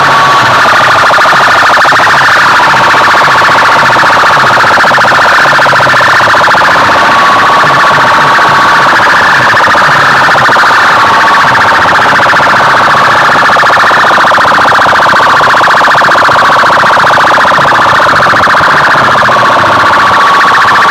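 A siren-like alarm sound blasted without a break at full volume through banks of horn loudspeakers, harsh and packed into a narrow band of mid pitches, with a steady whistling tone coming and going on top.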